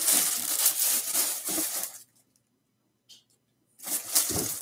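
Plastic bag rustling as a bagged item is pulled from a cardboard box and handled, for about two seconds, then briefly again about four seconds in.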